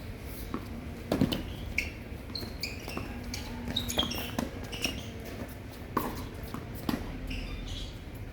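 Tennis rally: a tennis ball struck by rackets and bouncing on the court, sharp pops spaced about a second apart, with short high-pitched squeaks between them.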